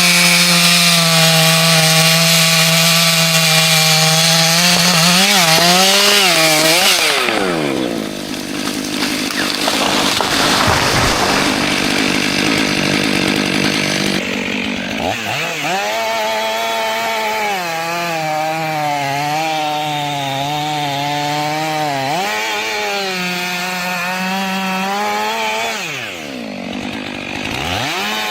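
Chainsaw running at high revs and cutting wood, its pitch sagging and recovering as the chain loads up in the cut. About a third of the way in, the engine tone gives way for several seconds to a rougher noise, then the high steady whine returns, dipping once more near the end.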